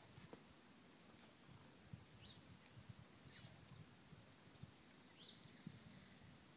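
Faint low snoring breaths of a sleeping horse, with small birds chirping briefly and faintly several times.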